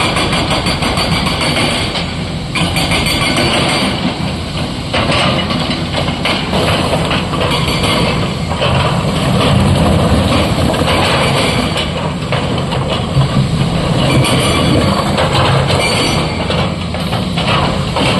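SANY SY225 crawler excavator's diesel engine running steadily under load as its bucket digs into and scoops broken rock from muddy ground, with rock clattering and knocking throughout.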